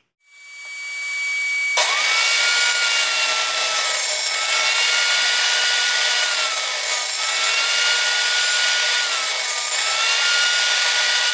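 Table saw spinning up over the first couple of seconds, then cutting through thick glued-up plywood with a steady loud whine; the pitch of the blade dips every two to three seconds as it slows under each cut.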